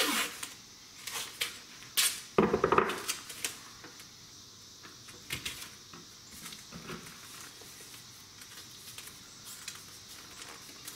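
Duct tape being pulled off the roll and wrapped around a bundle of Roman candle tubes, with a louder rasping tear about two and a half seconds in and scattered clicks and knocks of handling.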